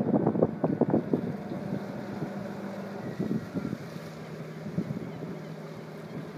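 A fishing boat's diesel engine running at slow speed, a steady low hum, with gusts of wind buffeting the microphone that are strongest in the first second.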